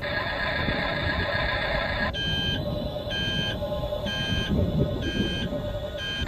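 Reversing warning beeper of a radio-controlled construction model, starting about two seconds in and beeping about once a second, over a steady low rumble from the running model.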